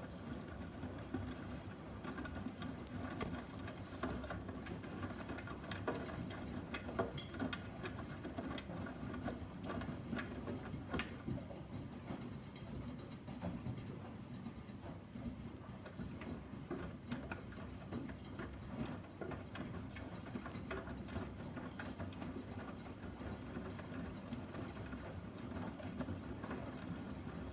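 Miele washing machine running a 40 °C wash: the drum turning and the laundry tumbling in water, with a steady low hum and many small irregular clicks and knocks.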